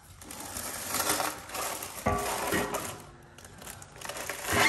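Cardboard and packing material rustling and crinkling as the new stainless exhaust parts are handled in their box, with a metal clank and short ring about two seconds in and another near the end.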